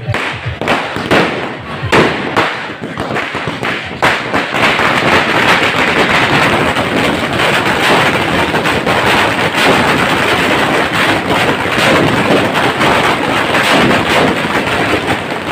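Firecrackers bursting on a street: a few separate bangs in the first four seconds, then a long, rapid, continuous crackle of many crackers going off in quick succession.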